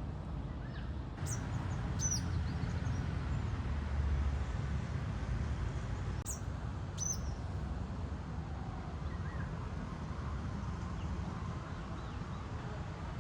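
Small bird giving quick, high chirps that fall in pitch, two pairs of them about five seconds apart, over a steady low outdoor rumble.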